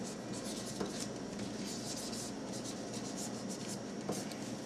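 Marker pen writing on a plastic storage bag: a run of short, irregular scratchy strokes as the label is written, with a light knock about a second in.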